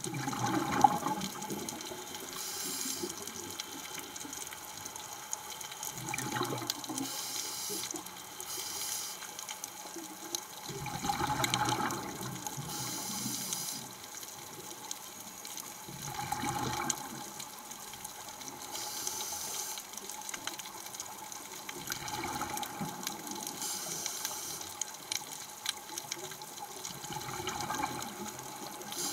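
Scuba diver breathing through a regulator underwater: a hissing inhale, then a bubbling exhale, repeating about every five seconds.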